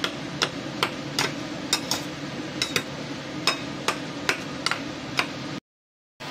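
Metal spatula chopping a cooked omelette on a ceramic plate: sharp clicks as its edge strikes the plate, about two a second and unevenly spaced, over steady background noise. The sound drops out briefly near the end.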